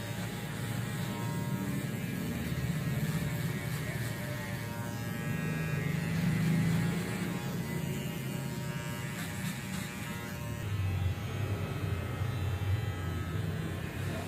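Electric barber's shaver buzzing steadily against a scalp during a head shave, its loudness swelling and dipping as it is drawn over the head. About eleven seconds in, the buzz drops to a lower pitch.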